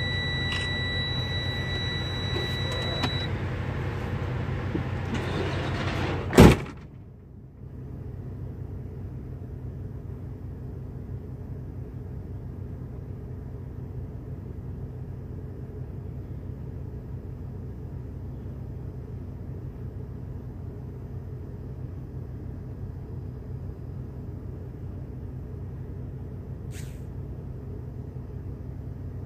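A steady electronic warning tone in a truck cab stops about three seconds in; a cab door then slams shut about six seconds in, the loudest sound. After the slam the truck's engine idles with a low steady hum, with one faint click near the end.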